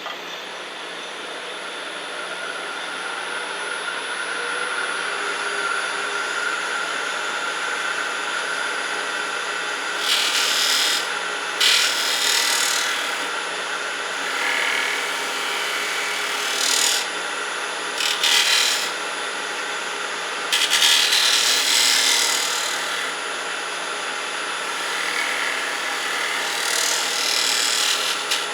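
Wood lathe running steadily with a spinning piece, then, from about ten seconds in, a turning tool cutting into the wood in six or seven short passes of a second or two each, cleaning up the piece's bark edge.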